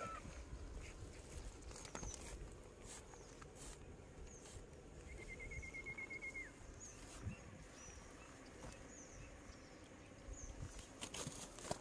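Faint rustling and light clicks of live eels and snakehead fish wriggling on stony gravel while hands sort through them. Short high chirps come every second or two, with a brief high trill in the middle.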